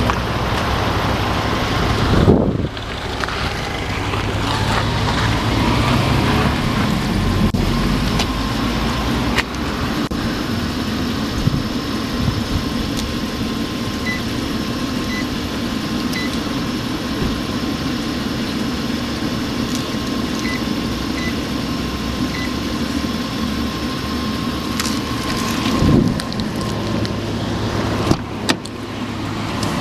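A car engine idles with a steady low rumble. Partway through come two groups of three short electronic beeps, from button presses on the car wash control panel. There are a few knocks near the end.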